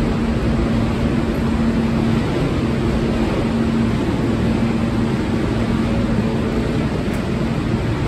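Steady low rumble and roar of a subway train echoing down the tunnel of an underground station, with a faint steady hum.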